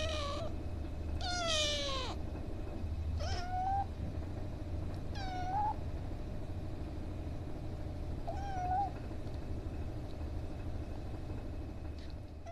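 Young kitten meowing repeatedly, about six high meows a second or more apart, the first two longer and falling in pitch, the later ones short.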